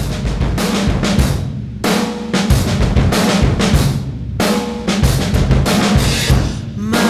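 Background music with a heavy drum beat, bass drum and snare to the fore.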